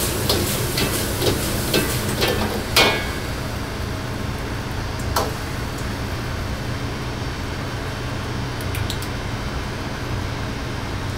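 Metal ladle clanking and scraping against a wok while vegetables are stir-fried over a commercial wok burner. Several sharp clanks come in the first three seconds and one more about five seconds in, over the steady roar of the burner.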